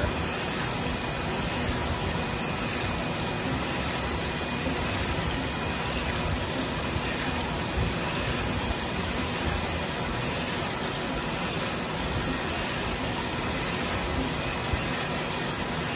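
Storm Vulcan 15AW crankshaft grinder running, its wheel grinding the offset crankpin of a Chevrolet 235 six-cylinder crankshaft under coolant spray: a steady, even hiss with a faint machine hum beneath it.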